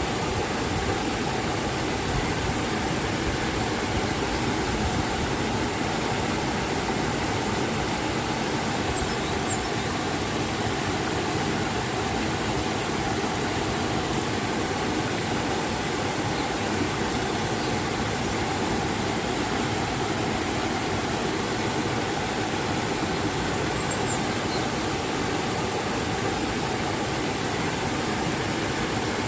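River and waterfall water rushing steadily, an even, unbroken noise that does not change.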